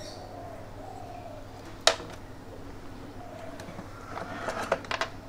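Handling noises on a workbench: one sharp click about two seconds in, then a quick run of small clicks and rattles near the end as wires and a small plastic part are handled. A steady low hum runs underneath.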